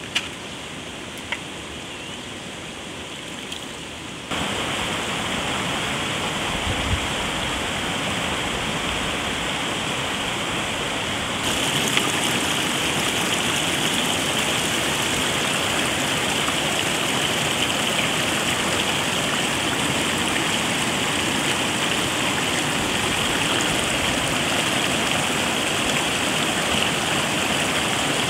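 Shallow stream rushing over and around boulders: a steady rush of water that gets louder about four seconds in and again near twelve seconds.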